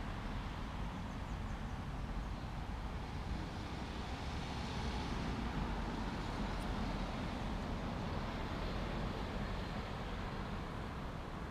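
Road traffic: a steady wash of passing cars with a low rumble underneath, swelling slightly around the middle.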